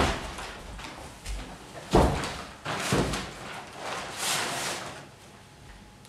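Door on a stage set banging shut with a thud, followed by a second knock about a second later and then a brief hiss.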